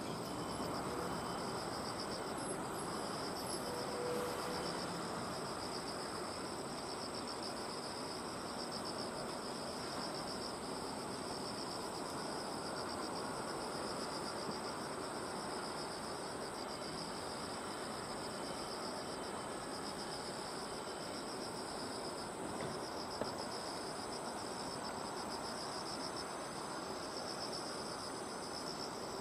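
Insects singing in a steady, fast-pulsing high trill, over a steady outdoor background noise.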